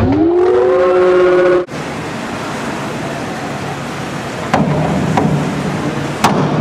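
A loud whoop that rises and then holds, as from a cheering spectator, right after a dive entry. It cuts off abruptly. Then comes the steady hum of a large indoor pool hall, with a few sharp knocks of a springboard as the next diver hurdles and takes off.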